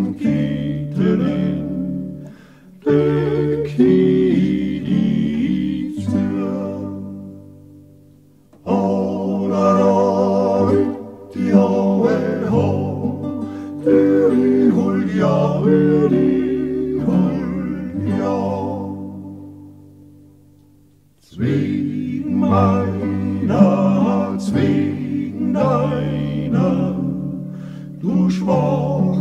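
A four-part male vocal quartet sings an Alpine folk song to acoustic guitar accompaniment. The music twice dies away at the end of a phrase, then starts again.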